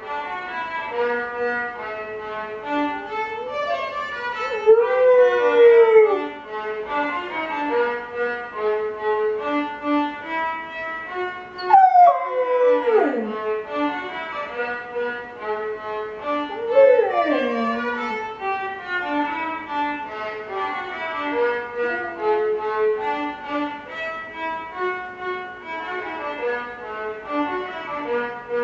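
A six-month-old golden retriever puppy howling along to slow violin music, three howls over the steady notes: one rising then falling a few seconds in, a sharp falling howl about halfway through, and another falling howl a few seconds later.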